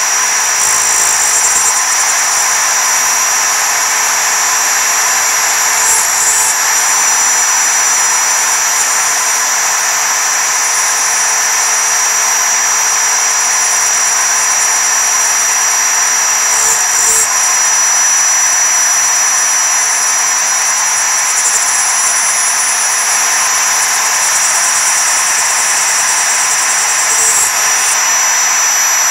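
Mostly Printed CNC router's spindle running at full RPM with a single-flute end mill cutting 3.5 mm 6061 aluminium plate: a steady high whine over a hiss of cutting. The tone wavers briefly three times, about six, seventeen and twenty-seven seconds in.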